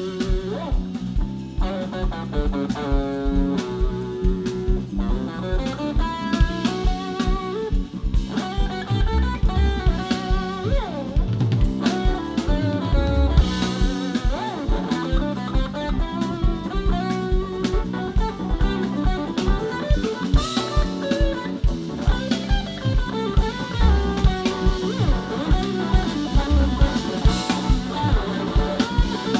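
Live band playing an instrumental stretch: electric guitar lines over bass guitar and a drum kit keeping a steady beat.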